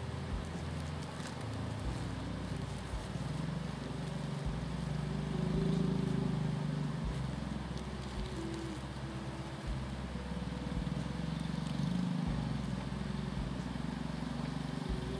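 Soft background music with held notes that change every second or so, over a low steady hum.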